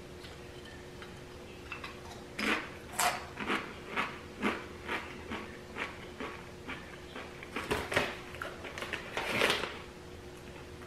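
Doritos tortilla chips being chewed: a run of crisp crunches, about two to three a second, starting about two seconds in and stopping shortly before the end, over a faint steady hum.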